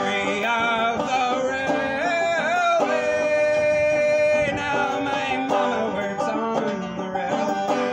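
A banjo played with a steady plucked accompaniment while a solo voice sings a folk shanty, with long held notes and a few bending, wavering ones.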